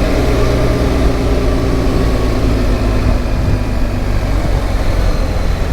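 BMW R 1300 GS's boxer-twin engine running at steady revs while riding, with wind and road noise.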